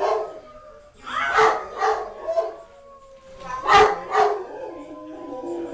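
Great Dane howling: one long drawn-out howl that slowly falls in pitch, with two short, loud vocal outbursts breaking in, about a second in and just before four seconds.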